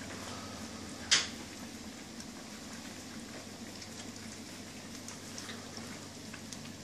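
German shepherd puppies eating dry kibble from a stainless steel feeding pan: a steady mass of small overlapping crunches and ticks, with one sharp click about a second in.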